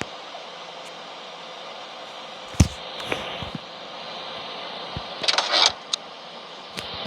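Toys being handled and moved: a sharp knock about two and a half seconds in, then a short clatter of clicks and scrapes around five seconds in, over a steady faint hiss.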